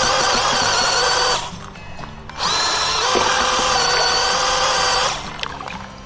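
Cordless drill spinning a paint-mixer paddle through clay slurry, its motor whining in two runs: it stops about a second and a half in, starts again with a rising whine near 2.5 seconds, and stops again about 5 seconds in. The user blames the stop-start running on a weak drill battery.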